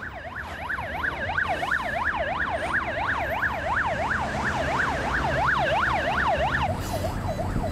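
Ambulance siren yelping, a tone sweeping rapidly up and down about three times a second, which switches near the end to a quicker, narrower warble. Traffic rumble runs underneath.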